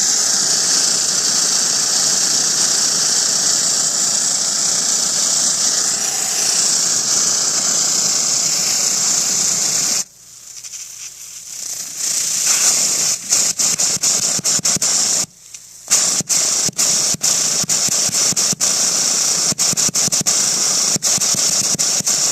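Pressurised water hissing out of pinhole leaks in a copper cold-water supply pipe: a loud, steady high hiss. About ten seconds in it drops away, then returns in choppy stretches broken by many brief gaps.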